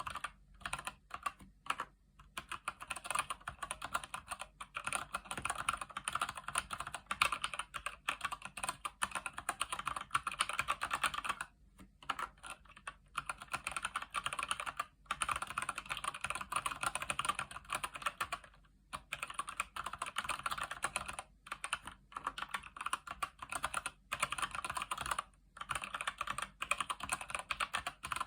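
Steady typing on a Keychron C1 mechanical keyboard with Gateron Brown switches: a fast, continuous run of keystroke clicks, broken by a few brief pauses.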